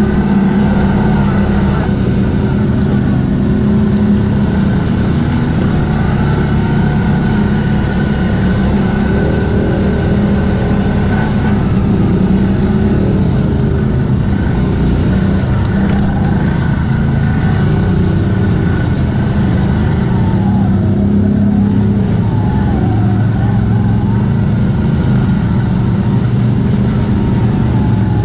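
CF Moto X10 1000 ATV's V-twin engine running while riding, its pitch rising and falling with the throttle.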